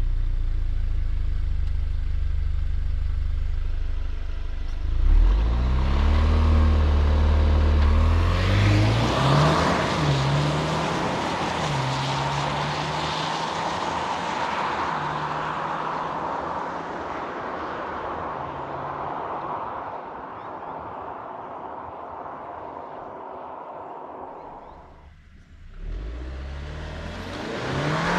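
2022 Alfa Romeo Stelvio Veloce's 2.0-litre turbo-petrol four-cylinder held at a low rumble, then launching hard about five seconds in. Its revs climb and drop back repeatedly as the eight-speed automatic upshifts under full acceleration. Near the end the sound dips sharply and the revs rise again.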